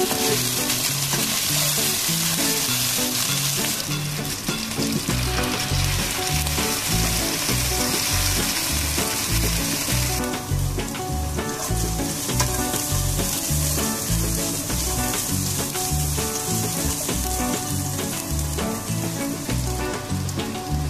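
Chicken pieces frying in hot oil in a nonstick pan, a steady sizzle as they are turned with a spatula; the sizzle is loud at first and quieter after about ten seconds. Background music with a bass line runs underneath.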